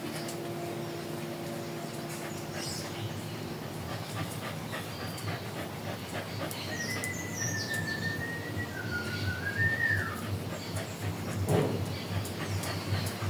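An animal's high, wavering whistle-like call, held for about three seconds and dropping in pitch at its end, with faint short chirps around it.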